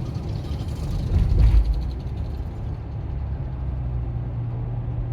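Steady low hum and rumble of road and engine noise inside a car's cabin while driving, swelling louder about a second and a half in.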